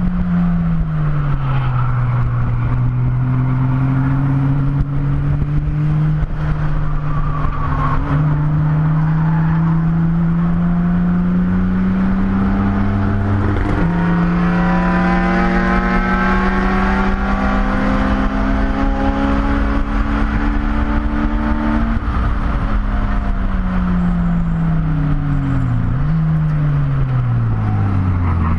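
BMW E30 race car's engine heard from inside the cabin under a long pull, its pitch climbing slowly with a gear change about halfway through. Near the end the engine note falls away twice as the car slows.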